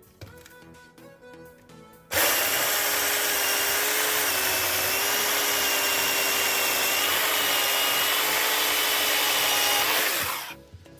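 Small battery-powered chainsaw (pruning saw) running at full speed and cutting firewood. It starts abruptly about two seconds in, holds a steady high whine with a slight dip in pitch under load, and winds down near the end.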